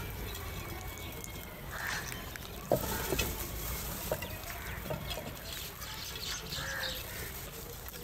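House crows feeding from clay bowls: scattered pecking clicks and knocks, the sharpest nearly three seconds in, with a few short calls.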